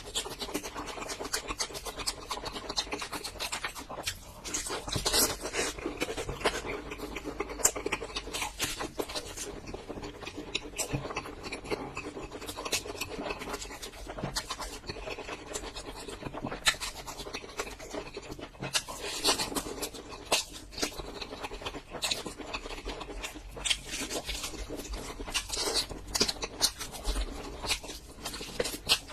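Close-miked eating sounds: steady chewing with dense, crisp crackles and clicks, the crunch of fried food being bitten and chewed.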